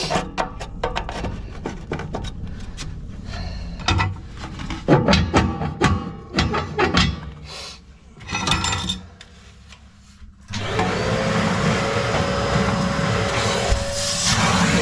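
Metal and brick stove parts clinking and knocking as they are handled, then about ten seconds in a motor starts suddenly and runs steadily with a constant whine.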